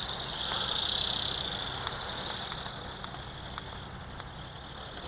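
The E-Bird RC ornithopter's small electric motor and flapping-wing gearbox running at a high-pitched whine under power, slowly fading as the bird flies off.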